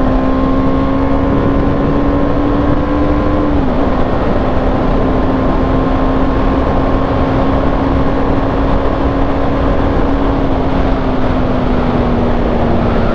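BMW G310R's single-cylinder engine pulling hard at full throttle under heavy wind noise. About three and a half seconds in, an upshift makes a quick drop in pitch; after that the engine note holds steady and sinks slowly.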